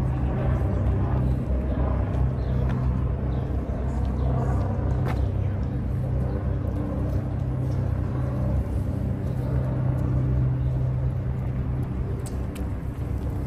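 Steady low engine rumble with a constant deep hum that holds level throughout. Faint voices come and go behind it.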